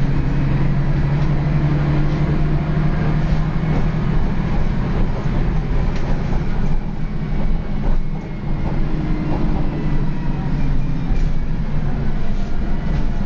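Dennis Lance bus with a ZF automatic gearbox heard from inside the saloon, its diesel engine and drivetrain growling as the bus drives along over road rumble. The engine note dips briefly about eight seconds in and then picks up again.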